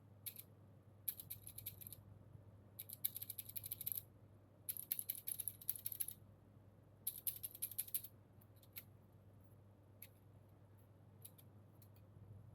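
Keyboard stabilisers, small plastic housings with metal wires, rattling and clicking as they are handled and fitted into the PCB. There are four short bursts of rapid clicks in the first eight seconds, then a few single clicks.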